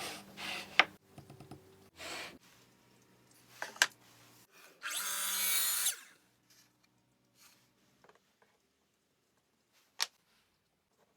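Short bursts of a woodworking power tool, the longest about a second, mixed with sharp clicks and knocks, then a few isolated clicks.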